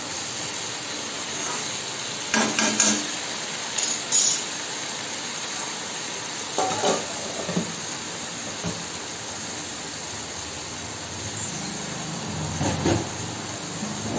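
Cluster beans sizzling steadily in an iron kadhai on high heat as their leftover cooking water boils off, with a steel spatula scraping and clinking against the pan a few times.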